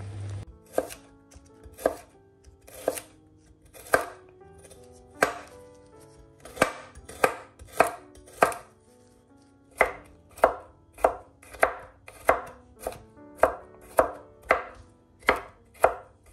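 Large kitchen knife chopping garlic cloves on a bamboo cutting board: sharp single knocks of the blade on the board, about once a second at first, then quickening to nearly two a second.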